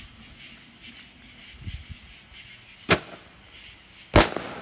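Firework going off with two sharp bangs a little over a second apart, the second louder.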